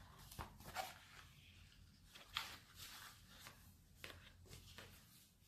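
Faint, scattered clicks and rustles of a smartphone box and its cardboard insert being handled, the loudest about two and a half seconds in.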